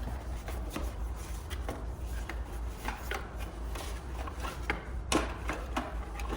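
Packaging and accessories being handled while unboxing: irregular rubbing and rustling with small knocks, one sharper knock about five seconds in, over a steady low hum.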